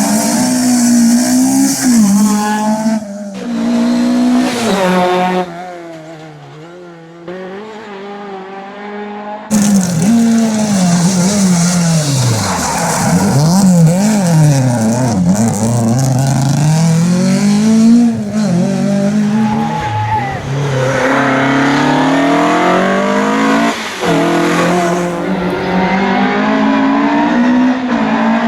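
Fiat 131 Abarth rally car's twin-cam four-cylinder engine revving hard on a stage, its pitch rising and falling again and again through gear changes. The engine drops away to a quieter level about six seconds in and comes back abruptly about four seconds later.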